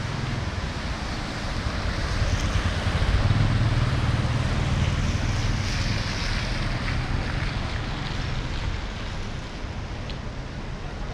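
A car passing on a wet road, its tyre hiss swelling over a few seconds and then fading, over wind buffeting the microphone.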